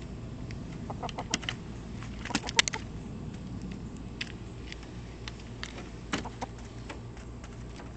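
Hens pecking and scratching through dry leaf litter right by the microphone: irregular sharp clicks and taps, loudest in a quick cluster about two and a half seconds in.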